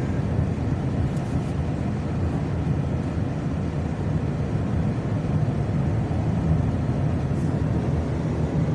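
Steady road and engine rumble inside a moving car's cabin, a low, even drone with no sudden sounds.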